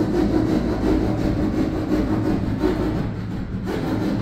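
Rasping and scraping of hand work on a ceiling panel overhead, as if sawing out the opening for a bathroom exhaust fan, with a steady low hum underneath. It eases off slightly about three seconds in.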